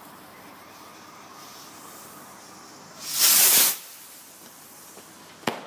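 Firework rocket launching with a short loud whoosh about three seconds in, followed about two seconds later by a single sharp crack as it bursts.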